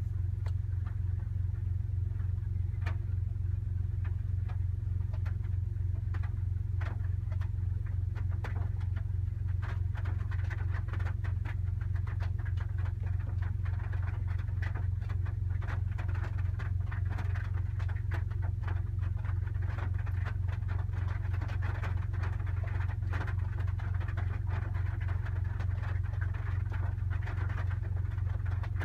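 Raindrops hitting a car roof that has no sound deadening, heard from inside the cabin: scattered sharp ticks and taps that come thicker and faster from about ten seconds in. A steady low hum runs underneath.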